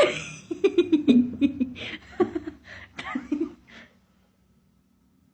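A person laughing in short, rapidly repeated bursts, stopping about four seconds in.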